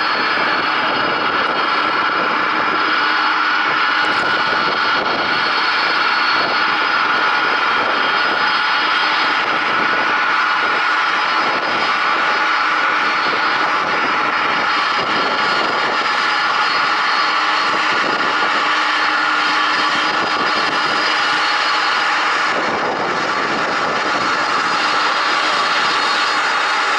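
Boeing 747 Dreamlifter's turbofan engines running steadily, a constant jet rumble with high whining tones over it.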